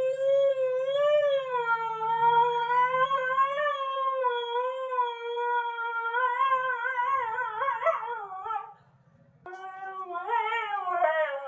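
Husky howling: one long howl with a gently wavering pitch that breaks into a quick quavering wobble near its end, then after a short pause a second howl that rises and falls.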